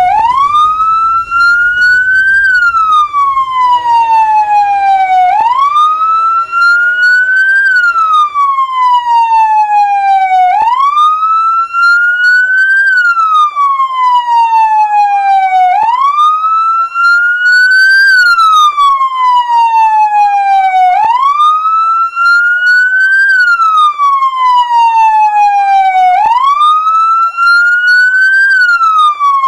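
Ambulance siren in wail mode, loud, its pitch sweeping up quickly and sliding slowly back down about once every five seconds. A fainter steady tone sounds under it for a few seconds near the start, and from about twelve seconds in a fainter rapid warble runs beneath the wail.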